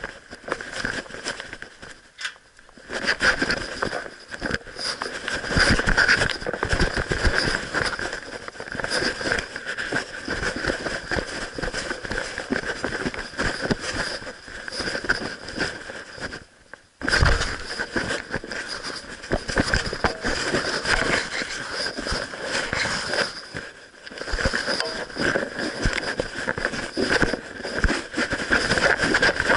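Continuous rubbing, crackling and knocking of an action camera strapped to a puppy, jostled against its fur and mount as the dog moves about. It falls quiet briefly twice, about halfway through and again later.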